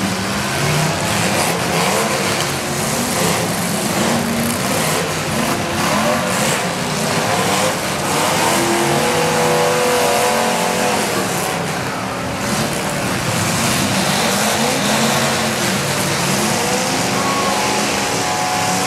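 Several demolition derby cars' engines revving hard at once, their pitches rising and falling against each other over a constant din, with occasional bangs.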